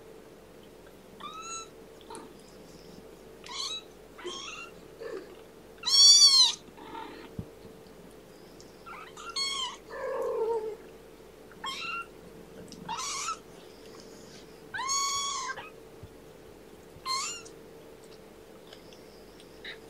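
Three-week-old kittens mewing: about ten short, high-pitched cries that rise and fall, coming at irregular intervals, the loudest about six seconds in.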